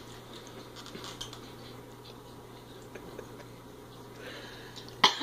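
Mostly quiet room with a few faint clicks and one sharp knock near the end.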